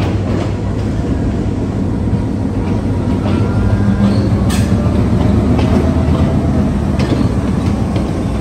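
German-built diesel locomotive running loud as it rolls slowly past close by, hauling its coaches in to the platform. A steady low engine hum grows a little louder as the locomotive draws level.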